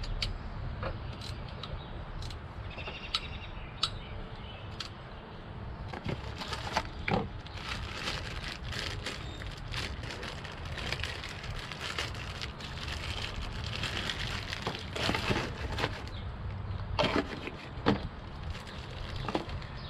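Irregular clicks and metal clinks of hand tools working on an engine, such as a ratchet snugging down the bolt of a newly fitted camshaft timing solenoid, over a steady low hum.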